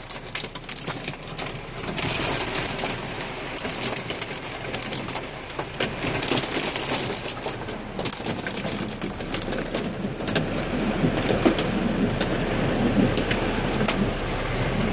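Hailstones pelting down in a storm: a dense patter of sharp ticks and clicks over a steady hiss of falling ice and rain.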